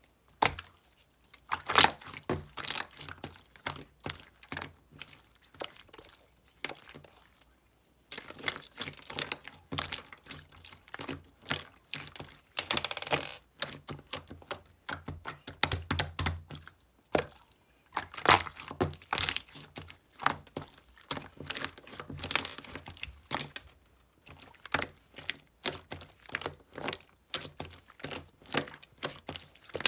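Clear slime full of beads being squeezed and pressed by hand, giving dense, irregular crackling clicks and pops, with brief pauses about eight seconds in and near twenty-four seconds.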